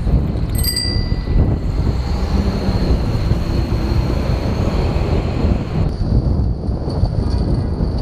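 Wind noise on the microphone and the rumble of riding in street traffic, with one short bell-like ding about half a second in.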